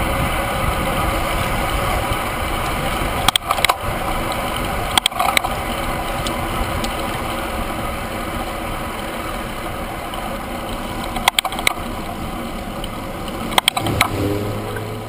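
Steady wind and road rush on a handlebar-mounted camera on a road bike riding at speed, broken four times by a quick pair of sharp clicks or knocks. A low hum joins about a second before the end.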